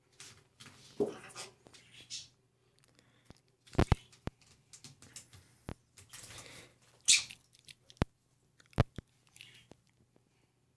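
Yellow-sided green-cheeked conure bathing in water: scattered splashing bursts, with a few sharp knocks against its dish, the loudest about four seconds in and two more near eight and nine seconds.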